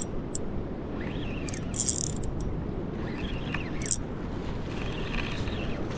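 Steady wind and sea noise, with several short, high scraping hisses as a spinning rod and reel are handled, and a few chirps.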